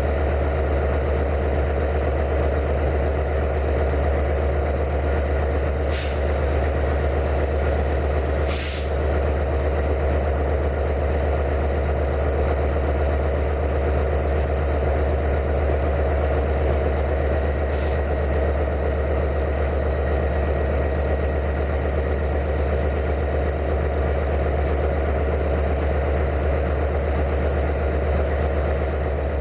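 Diesel locomotive engine idling steadily, with three short hisses of released compressed air, the second and loudest about nine seconds in.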